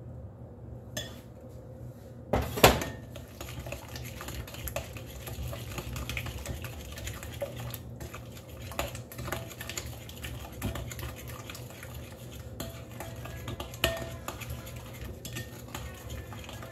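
A metal fork beating eggs into creamed butter and sugar in a glass mixing bowl: fast, continuous clinking of the fork against the glass, with one loud knock about two and a half seconds in.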